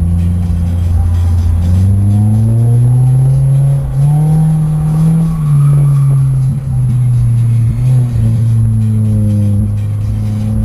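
A car engine revs, rising in pitch about two seconds in and again around four seconds in, over loud music with a heavy steady bass.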